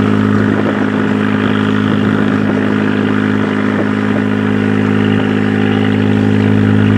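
A fishing boat's 750-horsepower Komatsu diesel engine running steadily, a low even drone through its exhaust.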